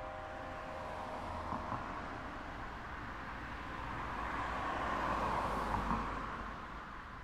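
A car passing by: its road noise swells to a peak about five seconds in and then fades away.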